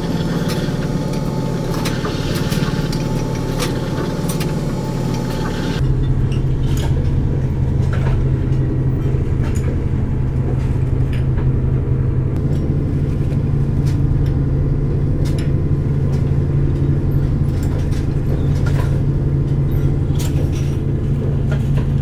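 Steady low drone of a commercial fishing boat's engine and machinery heard from inside the vessel, with scattered light clicks and knocks. About six seconds in, the sound changes abruptly to a louder, deeper hum.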